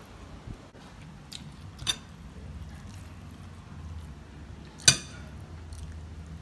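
A metal spoon clinking against the dishes as food is scooped and served: two light clinks, then one sharp clink about five seconds in that rings briefly.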